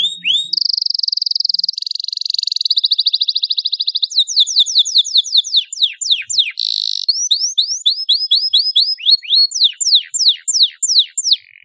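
Domestic canary singing a long, loud song: buzzing trills and rolls, then runs of quick, sharply falling whistled notes, several a second. The song stops near the end.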